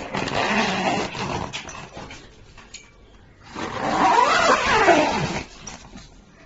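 An animal vocalizing in two loud bouts, the second with a pitch that sweeps up and down.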